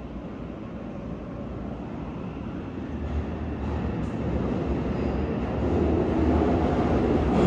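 Yokohama Municipal Subway Blue Line train, set 3321 with Mitsubishi IGBT-VVVF drive, approaching through the tunnel. Its rumble grows steadily louder.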